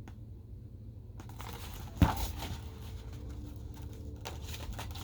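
Paper rustling and handling sounds from a picture book being handled, probably a page turn, starting about a second in, with one sharp knock about two seconds in.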